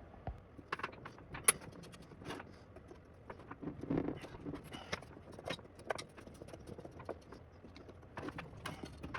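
A screwdriver backing out the screws of an antique typewriter's underplate: irregular small metal clicks, ticks and scrapes.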